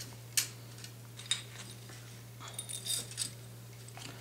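Metal clicks and light clinks from a Remington 870 pump shotgun's parts being handled at the magazine tube: a click about half a second in, another just after a second, then a short run of ringing clinks around three seconds.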